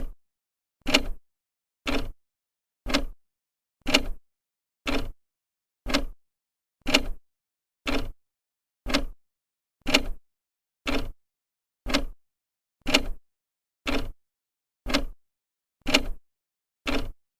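An old clock ticking, its second hand stepping with one sharp tick every second, evenly spaced.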